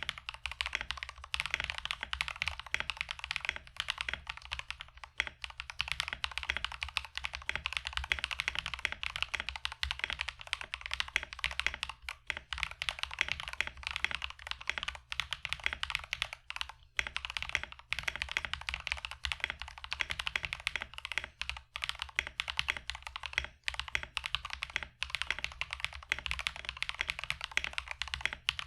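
Fast, continuous typing on a mechanical keyboard fitted with factory-lubed KeebsForAll Pink Robin linear switches (nylon bottom housing, PC top housing), a dense run of key strokes with a few brief pauses. A steady low hum sits beneath.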